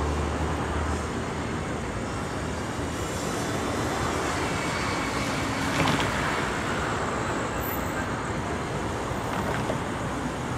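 Road traffic noise: a steady hiss of cars passing, with a low rumble fading in the first second and one car going by about six seconds in.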